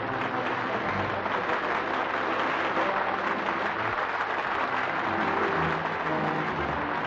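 Large crowd clapping steadily, a dense even patter of many hands.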